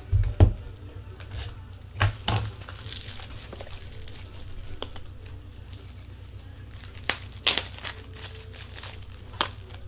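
Trading-card pack wrappers crinkling and tearing as packs are opened and cards handled, in a few short bursts with gaps between.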